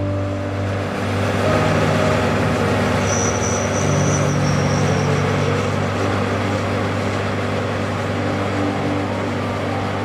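A Challenger MT875C tracked tractor and a John Deere tractor running steadily side by side, with a low engine hum under an even rushing hiss while the grain cart's auger unloads shelled corn on the move. A faint high whine comes in about three seconds in and fades out by about five seconds in.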